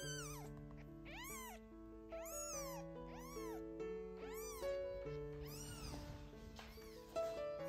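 Tiny kitten mewing over and over: high, thin calls that rise and fall in pitch, about one a second, getting fainter in the last few seconds. Light background music plays under it.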